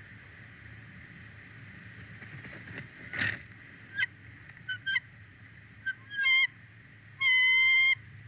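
Bald eagles calling at the nest: a brief rustle about three seconds in, then several short chirps, and one longer steady call near the end.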